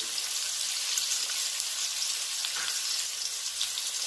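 Potato pieces frying in hot oil in a kadai: a steady sizzle with many small crackles.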